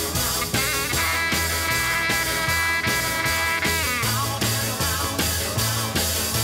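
Dance music played by the DJ over the sound system, with a steady beat and sustained instrumental notes.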